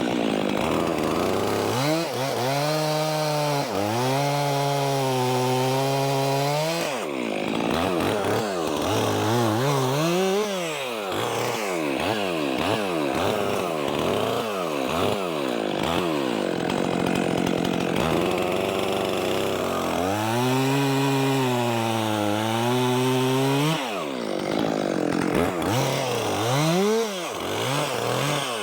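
Stihl MS 400 C two-stroke chainsaw cutting logs, its engine pitch sagging under load as the chain bites into the wood and rising again as it frees, over and over. Two longer loaded cuts come a couple of seconds in and again about two-thirds of the way through, with quick revs up and down between them.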